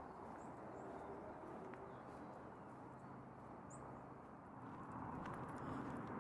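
A horse walking on a dirt trail, its hooves plodding softly and steadily, a little louder near the end. A brief high bird chirp a little past halfway.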